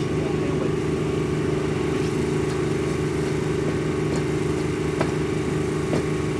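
Engine running steadily at a constant speed, with a few short sharp knocks near the end.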